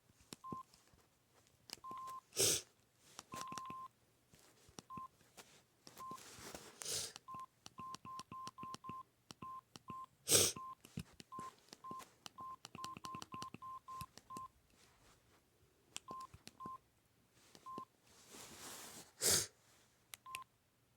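Samsung SGH-X450 mobile phone's key tones: short single-pitch beeps as its buttons are pressed, coming irregularly and in quick runs, some held a little longer. A few brief, louder puffs of noise fall between them.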